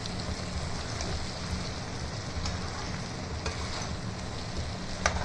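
Pieces of duck meat, bamboo shoot and potato sizzling as they fry in an aluminium kadai, stirred with a metal spatula that scrapes against the pan now and then.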